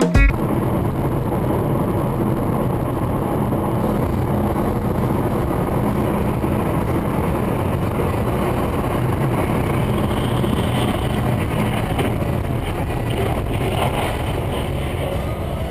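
Steady road and engine noise inside a car's cabin, picked up by a dashcam while travelling at about 100 km/h on a highway. It eases slightly near the end.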